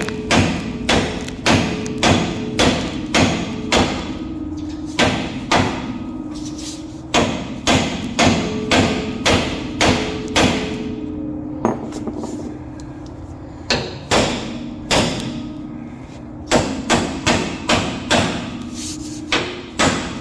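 Heavy hammer blows driving a pickle fork (ball joint separator) to break a tapered front-suspension joint loose, struck about twice a second in runs with short pauses, the metal ringing after each hit.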